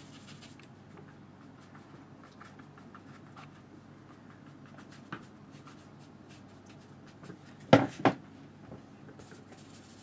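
A wide flat paintbrush scratching and dabbing faintly across watercolour paper, with many small ticks. About eight seconds in there are two sharp knocks close together.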